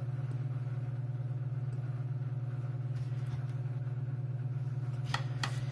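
A steady low hum with a slight pulse, with two short clicks near the end.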